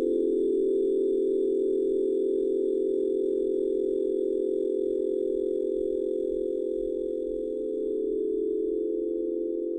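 Sustained meditation drone of several steady pure tones sounding together as a held chord, with no rhythm or pitch movement.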